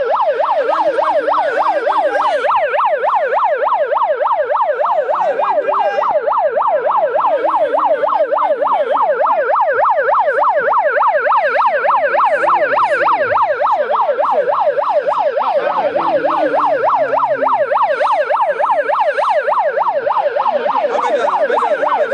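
Electronic yelp siren wailing rapidly up and down, several sweeps a second, loud and unbroken. It cuts off suddenly at the very end.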